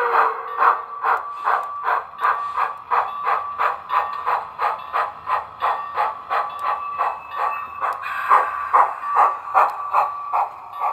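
Model steam locomotive sound from a Tsunami 2 decoder in an On3 engine: the exhaust chuffs evenly, about three chuffs a second, over a steady high hum as the locomotive moves. The chuffs get stronger about eight seconds in.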